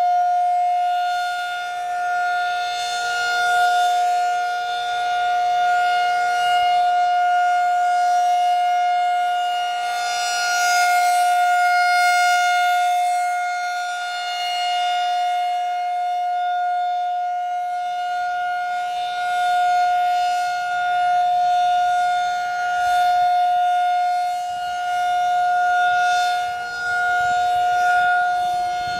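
Federal Signal 2001-SRN rotating electromechanical tornado siren sounding a steady alert tone during its test. The pitch holds level while the loudness swells and fades every several seconds as the rotating head sweeps past, with a fainter, lower steady tone underneath.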